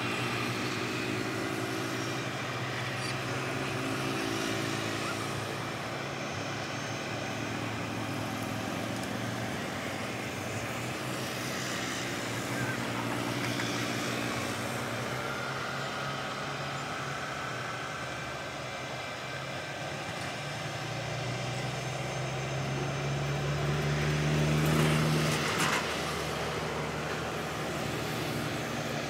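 Boeing 777-300ER's GE90 turbofan engines running at taxi power, a steady jet whine with tones that drift slightly in pitch. Their sound swells briefly about three quarters of the way through as the airliner turns on the runway.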